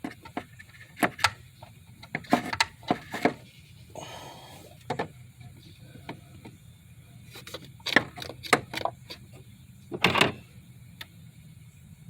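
Irregular clicks and knocks of car parts and tools being handled during a blow-off valve install, with a brief rustle about four seconds in and a louder knock and scrape near the end, over a steady low hum.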